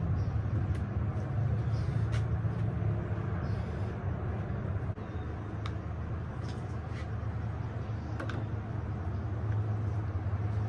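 Steady low mechanical hum, with a few sharp light knocks and clicks as a wooden board is set down and handled on a portable workbench.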